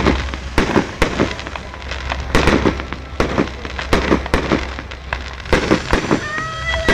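Aerial fireworks shells bursting in quick succession, a run of sharp bangs about two a second with crackle between them.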